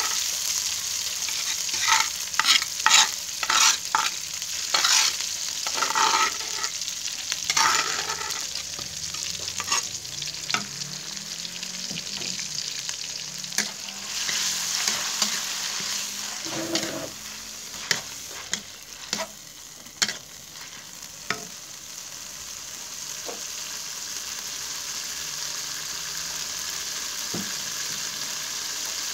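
Chili sambal paste sizzling as it fries in oil, stirred with a spatula that scrapes and knocks against the pan in quick strokes, busiest in the first eight seconds, with a few sharp taps again around the middle.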